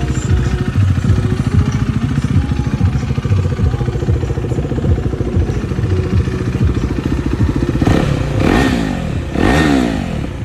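2022 KTM 390 Duke's single-cylinder engine breathing through an Arrow Pro Race Nichrom slip-on exhaust with the baffle removed, idling steadily, then revved in two quick blips near the end, each rising and falling back.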